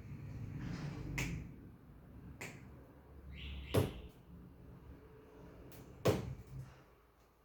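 Handling noise from parts being worked on a bench, with four sharp clicks or knocks, the loudest about four and six seconds in.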